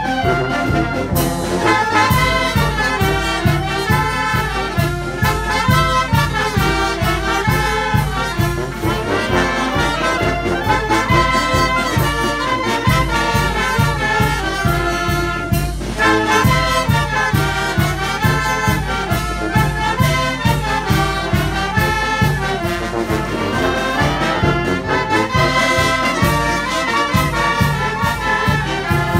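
A banda filarmónica, a brass and woodwind band of clarinets, saxophones, trumpets and sousaphones with bass drum and cymbals, playing a tune with a steady, driving beat.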